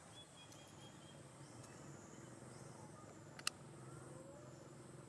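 Faint outdoor ambience: a steady high insect drone over a low hum, with a few short high chirps in the first second and one sharp click about three and a half seconds in.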